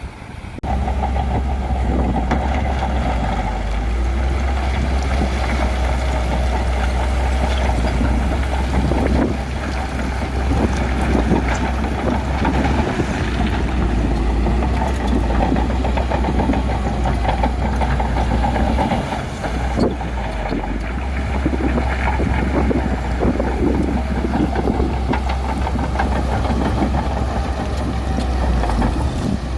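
Bulldozer's diesel engine running steadily with a deep drone, briefly easing off about two-thirds of the way through.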